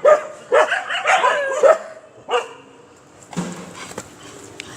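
Puppies yelping and whining: a quick run of short calls in the first two seconds and one more just after, then quieter.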